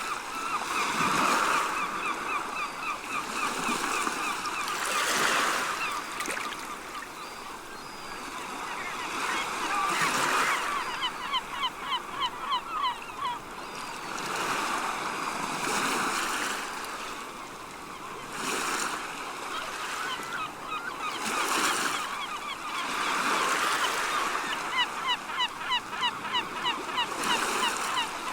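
Seagulls calling in quick runs of short, repeated notes over waves washing onto the shore, the surf swelling and fading every few seconds.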